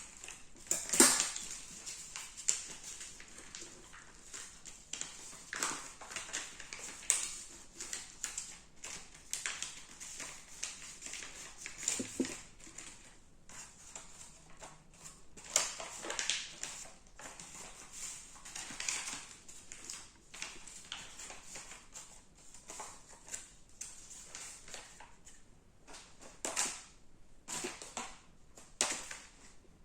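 A sheet of A4 paper being handled and folded, rustling and crackling in irregular short bursts as it is creased.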